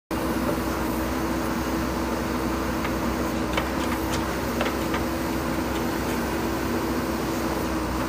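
JCB backhoe loader's diesel engine running steadily under hydraulic load as the backhoe arm swings the bucket over a tipper truck, with a steady hum throughout. A few sharp clinks come about three to four and a half seconds in.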